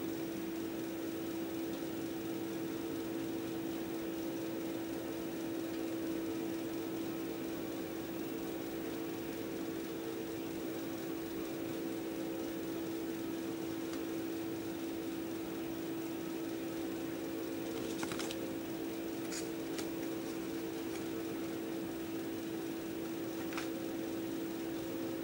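Steady motor hum from a wall-mounted electric fan running, one even tone that does not change, with a few faint short clicks in the last third.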